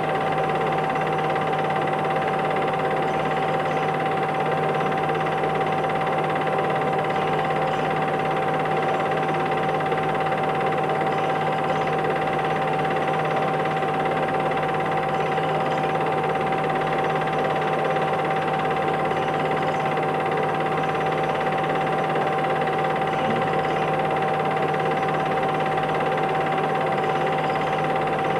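Steady mechanical hum and hiss with one constant whine, unchanging throughout.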